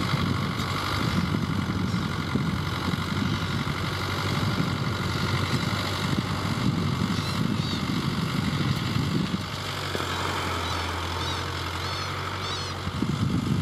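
Farm tractor's diesel engine running steadily under load while it pulls a disc harrow. The deeper rumble eases for a few seconds after the middle and returns near the end. A few short high bird calls are heard in the second half.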